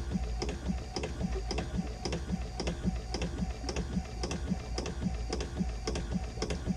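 Vacuflush vacuum pump with freshly replaced duckbill valves running: a steady motor hum under a regular rhythmic knock about three times a second from the pump's strokes.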